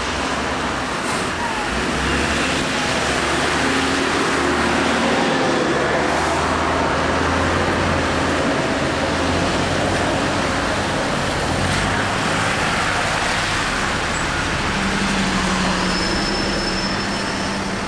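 Diesel double-decker buses idling and pulling away at a stop amid passing traffic, with tyres hissing on the wet road and a low engine drone.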